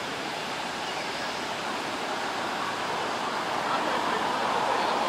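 Steady rushing wash of water and wind along a rocky shore, growing a little louder near the end.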